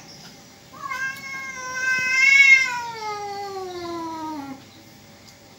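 Domestic cat yowling at another cat in a fight standoff: one long drawn-out call that starts about a second in, swells and rises a little, then slides steadily down in pitch for about four seconds before stopping.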